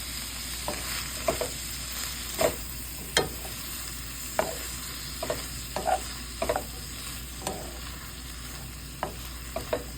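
Green beans sizzling in a frying pan with a steady hiss, stirred with a utensil that clacks irregularly against the pan.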